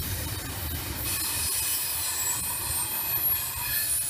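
A train rolling past on the rails: a steady low rumble of wheels and cars, with thin high-pitched wheel squeal above it.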